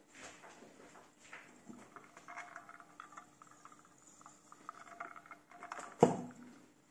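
Ice cubes clinking and rattling against the steel inside of an insulated tumbler of iced coffee, a run of small ringing clicks. About six seconds in comes a single loud knock.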